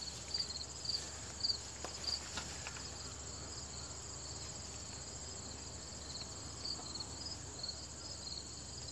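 Crickets chirping outdoors: short, high chirps about twice a second over a steady high-pitched trill.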